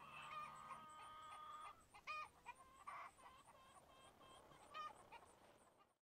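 Faint chickens clucking: one long drawn-out call first, then a string of short clucks, fading out at the end.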